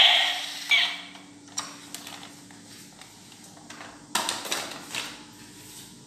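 Hard plastic toy animals being picked up and set down on a tabletop: a few light clicks, then a louder clatter of knocks about four seconds in. A louder sound that was playing fades out in the first second.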